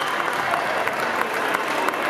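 Spectators applauding, a steady patter of many hands clapping at once.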